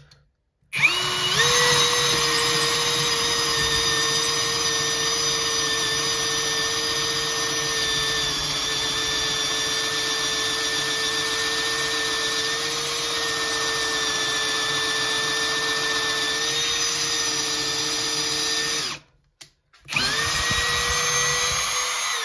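Parkside Performance PABSP 20-Li C2 20 V brushless cordless drill in first gear, boring a 12 mm hole into wood. The motor spins up about a second in and runs with a steady whine for about eighteen seconds, stops, and starts again briefly near the end.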